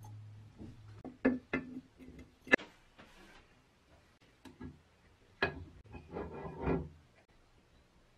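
Metal parts of a bench grinder knocking and clicking together as the motor shaft and bearing end-cap housing are fitted during reassembly. It is a series of separate sharp taps, the loudest about two and a half seconds in, then a quick run of clicks near the end.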